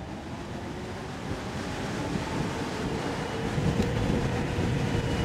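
Wind rushing over the microphone, growing steadily louder as a 72V Stealth Bomber-style electric bike accelerates hard at full throttle, with a faint steady whine underneath.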